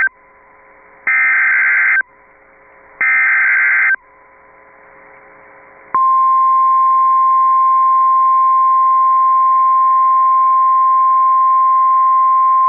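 Emergency Alert System SAME header: the end of one data burst, then two more harsh digital warbling bursts about a second long with a second's gap between them, marking the start of a tornado warning broadcast. About six seconds in, a single loud steady alert tone starts and holds: the 1050 Hz weather radio warning alarm tone.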